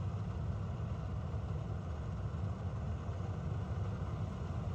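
A heavy diesel engine running steadily with a low, even rumble, as from the combine harvester or tractor at work close by.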